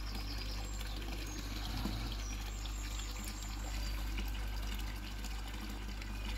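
Koi pond water trickling and pouring steadily over a steady low hum.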